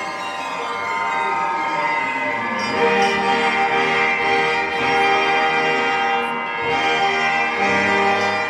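Live symphony orchestra playing held chords, the music growing fuller and louder as lower notes come in about three seconds in.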